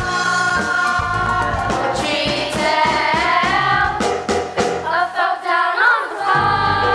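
A choir of voices singing a show tune with instrumental backing, holding long notes.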